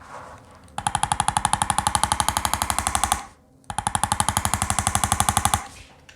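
Handheld electric chiropractic adjusting instrument firing rapid, evenly spaced taps, about ten a second, in two bursts of roughly two seconds each with a short pause between.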